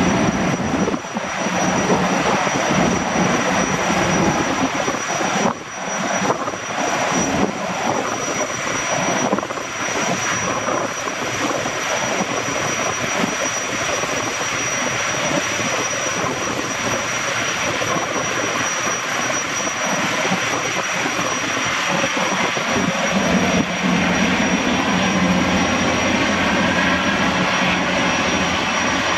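Boeing Jetfoil 929's twin gas turbines running with a steady high-pitched whine over the rush of water from its waterjets, as the hull-borne ferry manoeuvres into its berth.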